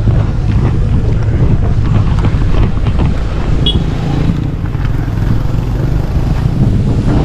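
Steady low rumble of a motor vehicle, with wind buffeting the microphone.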